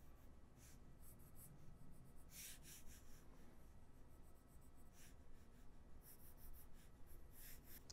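A handful of short, faint scratching strokes of a pen sketching on a drawing surface, with near silence between them.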